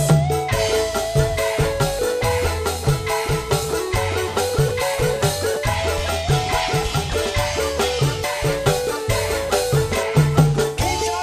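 Live campursari band playing an instrumental passage with no singing: an electone keyboard melody over a repeating bass line and a steady percussion beat.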